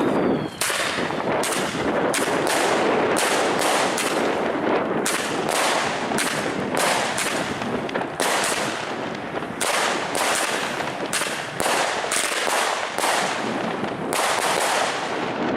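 Jorge Kasjopeja 16-shot, 20 mm consumer fireworks battery firing: a rapid, unbroken run of shots and bangs, a couple each second, over a constant hiss and crackle.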